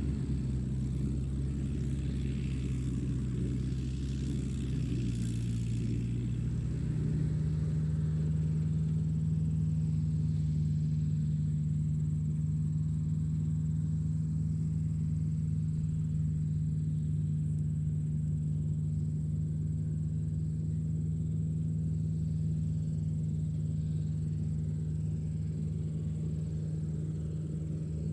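Tractor engine running steadily. About seven seconds in, its pitch steps up and it gets a little louder as the engine speeds up, then holds at the new speed.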